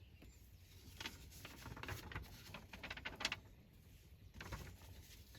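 Faint, scattered small clicks and rustles during a quiet pause, clustered in the middle of the pause.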